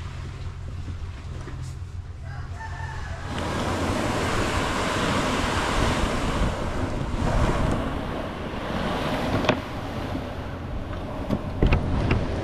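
Plastic kayak hull scraping across beach sand as it is dragged by a rope, a dense hissing scrape that starts about three seconds in and continues, with a few sharp knocks near the end. Just before the dragging starts, a rooster crows briefly.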